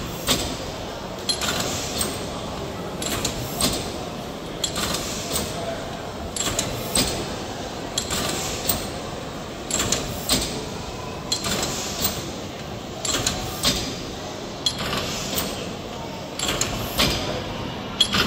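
Stationary mill steam engine running slowly: the 1903 Burnley Iron Works cross-compound Corliss-valve engine, with sharp mechanical clicks in pairs about half a second apart, each pair repeating roughly every one and a half seconds, over a steady background hum. Visitors murmur in the background.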